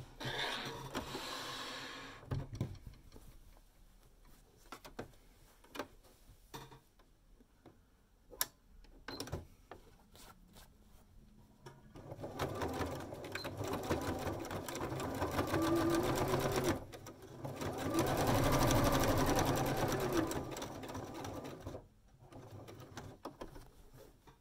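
Domestic electric sewing machine stitching through layers of fabric, running fast and even in two spells from about halfway in, with a short pause between them; the second spell is the loudest. Before it, fabric rustles and a few light clicks sound as the work is positioned under the foot.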